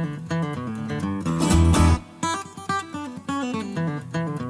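Background music: a strummed guitar over a steady beat and bass line.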